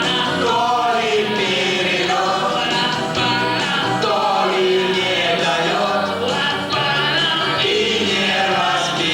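A song: several voices singing together over an instrumental backing.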